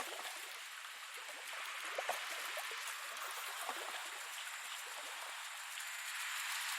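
Steady rain: an even hiss with scattered louder drops.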